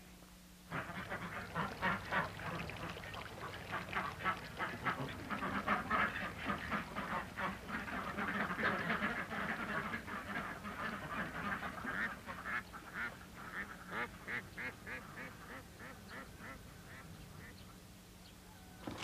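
A flock of domestic ducks quacking, many rapid overlapping calls that start abruptly about a second in and thin out near the end.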